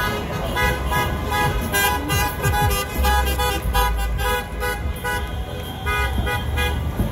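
Car horns honking over and over in short and held blasts, several at once, over traffic rumble: celebratory honking in a city street.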